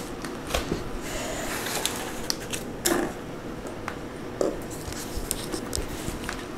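Handling noise of a white laminated flat-pack furniture panel being moved and set down on cardboard: scattered light knocks, taps and scrapes.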